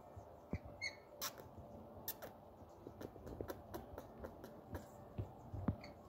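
Indian ringneck parakeet giving one brief faint squeak about a second in, among scattered faint clicks and taps.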